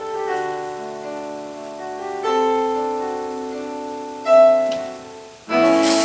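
Slow piano music: held notes and chords ringing out, with a new chord struck about two seconds in and a louder one about four seconds in. Near the end a fuller, louder passage begins with a hissing, rustling layer over it.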